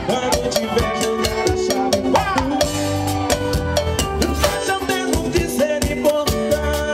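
Live band playing an upbeat Latin-style dance tune: a quick, steady pattern of stick strikes on timbales and cymbals over bass and keyboard.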